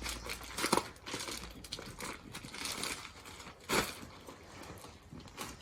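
Rustling and crinkling as a three-piece pajama set and its wrapping are handled and unfolded, with two sharper crackles, a little under a second in and near four seconds.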